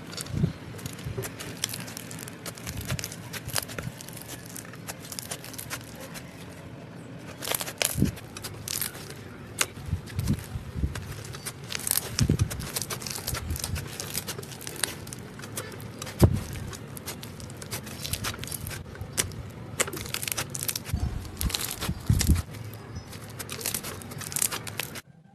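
Slime being squeezed and poked by hand, giving many irregular crackling clicks and snaps with some soft low thumps.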